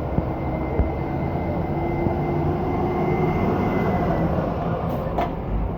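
A large road vehicle running past: steady engine hum and road noise, with a faint high whine that fades out about four seconds in and a short click near the end.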